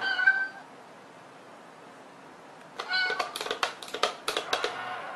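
Two short meows, one right at the start and one about three seconds in. The second comes with a quick run of sharp clicks and taps.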